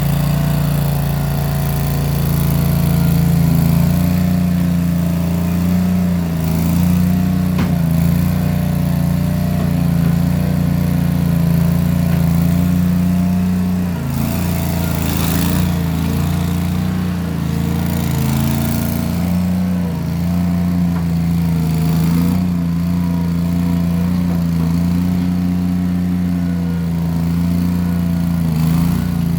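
Case 1816 skid steer's engine running steadily through small round mufflers as the machine works dirt. Its pitch dips and shifts briefly about halfway through and again a little later, with a short burst of noise near the middle.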